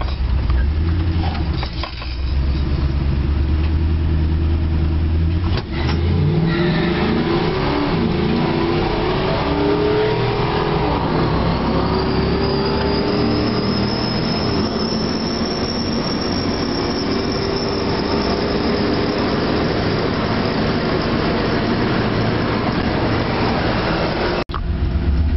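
Chevrolet K20 pickup's 8.1-litre Vortec big-block V8, heard from inside the cab during a quarter-mile drag run: a deep rumble at the line for about five seconds, then full-throttle acceleration with the engine pitch climbing again and again through the gears. A rising high whine and heavy road and wind noise build through the run, and the sound breaks off abruptly near the end.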